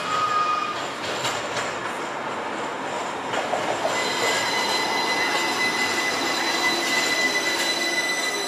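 Low-floor streetcar running past close by, with a steady high-pitched squeal that starts about four seconds in, typical of steel wheels squealing on the rails.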